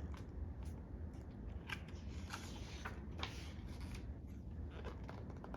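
Pages of a picture book being handled and turned: a few soft paper rustles and short clicks.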